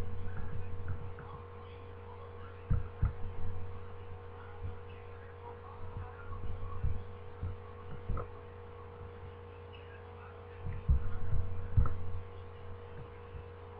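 Steady electrical hum in the recording, with scattered short low thumps and clicks, a few clustered around a quarter of the way in and near the end.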